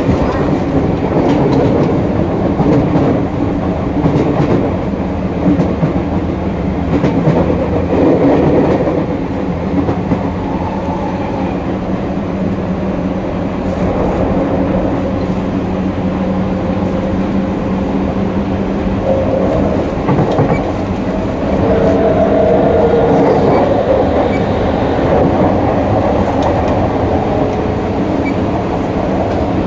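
Y500 series electric train running at speed, heard from the gangway between two cars: a loud, steady wheel-on-rail rumble with a hum, which swells for a few seconds about two-thirds of the way through.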